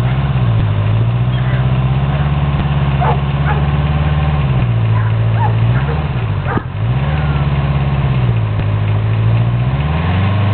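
Small engine running steadily, its speed dipping and picking back up twice around the middle and once near the end.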